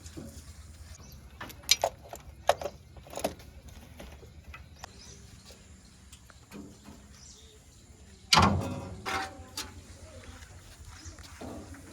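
Diesel machinery engine running steadily at low speed, with several sharp knocks early on and one loud heavy thud about eight seconds in that dies away over a second.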